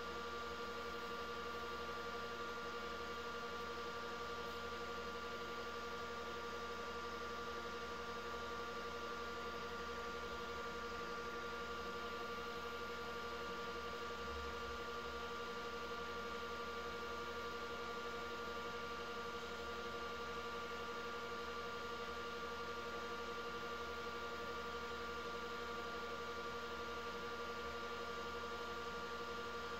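Wood lathe running at a steady speed: an even mechanical hum with a few held tones and no change in pitch or level.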